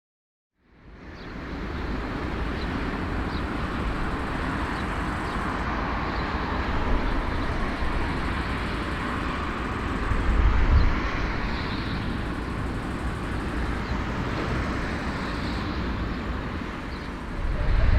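Steady engine noise with a deep rumble, fading in from silence about a second in and growing louder near the end.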